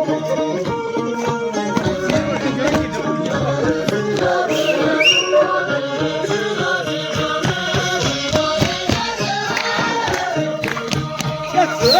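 Traditional folk-style music playing continuously, with singing and frequent percussive strokes.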